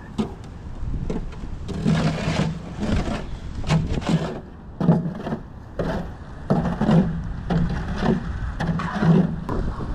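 Repeated scraping strokes of a hand tool worked across concrete, roughly one to two strokes a second, each a short gritty scrape.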